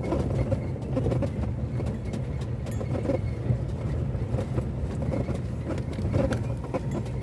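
Off-road 4x4 vehicle running, a steady low rumble with scattered light knocks and rattles.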